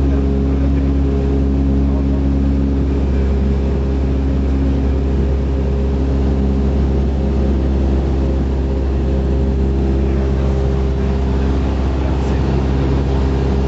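Cessna 172's piston engine and propeller droning steadily in flight, heard inside the cabin with a hiss of airflow over the airframe.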